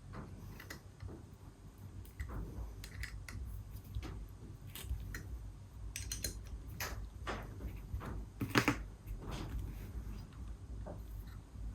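Light, scattered clicks and scrapes of a hand tool on small bolts as the two-stroke powervalve's adjusting arm is tightened down, with one louder click a little past eight seconds in.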